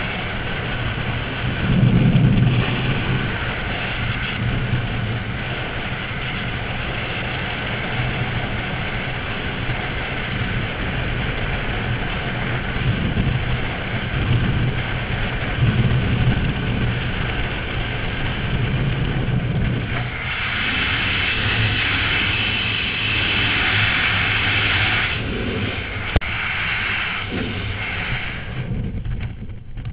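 Freefall wind rushing over a helmet-mounted camera's microphone, a loud steady buffeting of air with stronger hiss for a few seconds past the middle. It starts to die away at the very end as the parachute opens.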